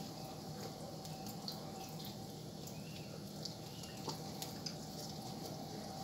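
Hands handling a raw turkey: faint wet squelches and a few small clicks as the skin and flesh are worked, over a steady low background hum.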